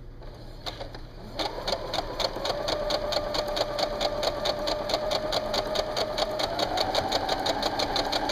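Electric domestic sewing machine starting about a second and a half in and running steadily, its motor humming under an even ticking of stitches, about six or seven a second, as it sews a straight seam down the middle of ric-rac trim on cotton fabric.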